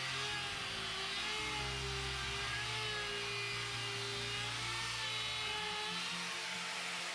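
Makita electric die grinder running steadily with an eye tool pressed into soft pine. Its whine wavers slowly in pitch as the bit loads and frees while it is worked back and forth.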